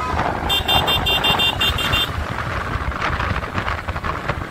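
Motorcycle riding on a highway, with wind on the microphone and a steady low engine and road rumble. About half a second in, a vehicle horn gives a rapid run of short, high beeps, about nine in a second and a half.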